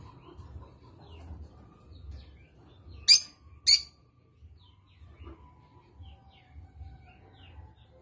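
A rosy-faced lovebird (lutino, yellow with a red face) gives two short, sharp, high calls about half a second apart, a little after three seconds in. Faint, scattered chirps come before and after.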